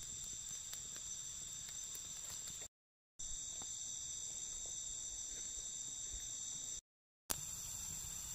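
Steady insect chorus in the forest: several high, even tones held together without a break in rhythm. It cuts out to silence twice for about half a second.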